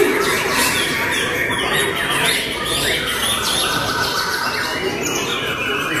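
White-rumped shamas singing hard in competition: a dense run of overlapping quick chirps, sweeps and harsher squawky notes from more than one bird.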